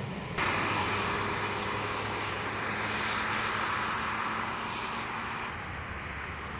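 Steady outdoor hiss over a low aircraft-engine hum at an airfield. The hiss jumps up suddenly about half a second in and eases off near the end.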